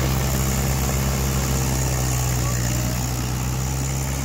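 Diesel engines of two Mahindra 575 XP Plus tractors running hard and steady as the tractors pull against each other on a taut tow rope in a tug-of-war. The engine note holds a constant low pitch.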